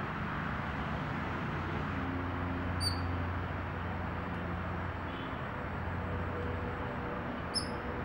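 Steady outdoor background rumble, with a bird giving a short high chirp about three seconds in and again near the end.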